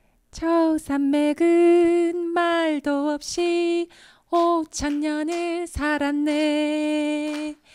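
A woman singing a Korean song unaccompanied into a handheld microphone, in short phrases that end on one long held note near the end.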